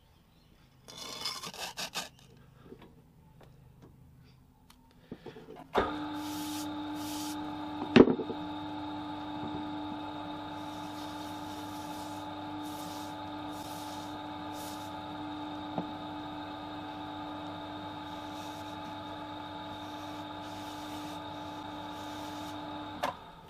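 A lathe motor starts about six seconds in and runs with a steady hum, spinning a shell sand core while a rag rubs against it, wiping off mould wash. A sharp knock comes about two seconds after the start, and the motor cuts off near the end.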